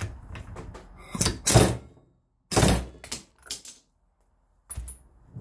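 Corded electric impact wrench hammering in several short bursts on the pinion yoke nut of a GM 8.25 differential, with knocks between the bursts. The nut does not come off: the clamp holding the yoke slips free and has to be tightened for another try.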